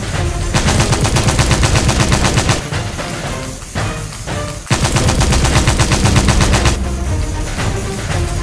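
Electronic machine-gun sound effect from a battery-operated crawling Spider-Man soldier toy, rapid fire in two bursts of about two seconds each, with music playing between the bursts.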